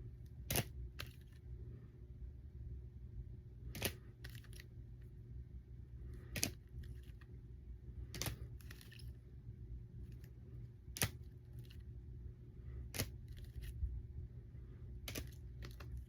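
Rigid plastic card top loaders being handled and set down one at a time, giving a sharp click every second or two over a low steady hum.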